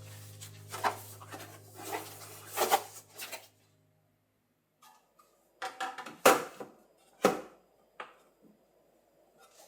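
Kitchen handling sounds: a string of knocks, rubs and clunks as objects are moved and set down, the sharpest about six and seven seconds in. Soft background music fades out about four seconds in.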